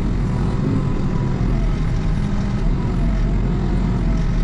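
Hepco HL95B backhoe loader's diesel engine running steadily under load while the hydraulics work the backhoe arm digging a trench, heard from inside the cab.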